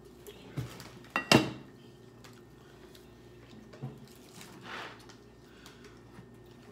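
Tableware clatter from a ceramic mug being handled and set on a table: a few sharp knocks and clinks, the loudest two close together about a second in, then a lighter knock and a soft swish a few seconds later.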